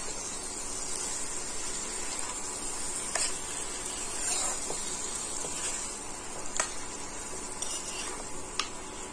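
Raw mutton pieces sizzling in hot oil and spice paste in a kadai while a spatula stirs and turns them, with a few sharp taps and scrapes of the spatula against the pan.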